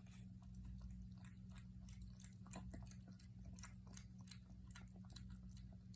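Faint, irregular little clicks of a puppy's mouth chewing, over a steady low hum.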